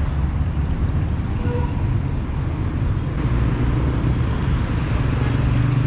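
Street traffic: car engines and tyres passing close by, a steady low rumble with one engine hum strongest near the end.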